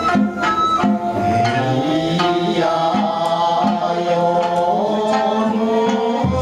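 Ryukyuan classical music: a slow, drawn-out sung melody over a plucked sanshin.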